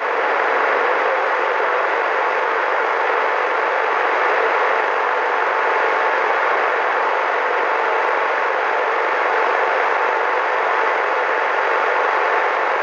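CB radio receiver static: a steady, loud hiss from the radio's speaker with a faint steady whistle in it, heard on the open channel between transmissions.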